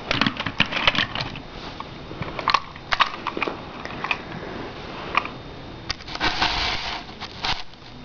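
Scattered light clicks and knocks of a plastic HO scale model locomotive being picked up and handled, with a second-long rustle about six seconds in.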